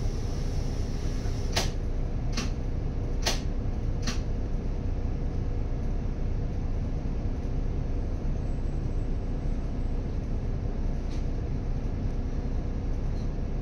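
City bus engine idling, a steady low hum heard from inside the cabin, with four sharp clicks a little under a second apart starting about a second and a half in.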